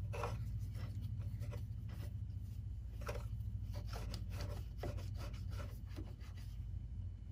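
A pipe cleaner rubbing and scraping around the metal bobbin area of a sewing machine as it digs out lint, making an irregular run of short scratchy strokes.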